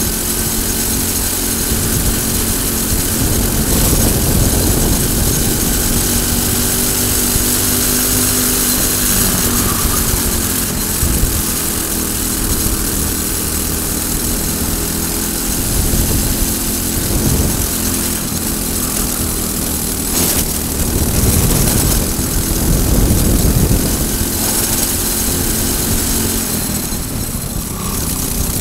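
Racing kart's Briggs & Stratton single-cylinder four-stroke engine running at race speed, heard from on board. Its note rises and falls as the driver accelerates down the straights and lifts for the corners.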